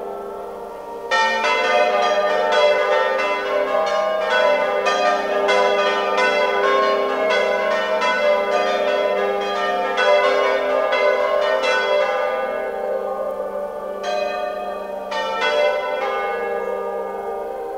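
Church tower bells rung by hand by bell ringers: a fast, dense peal of overlapping strokes starts about a second in. After about twelve seconds it thins to a few last strokes, while the bells' low hum rings on and fades.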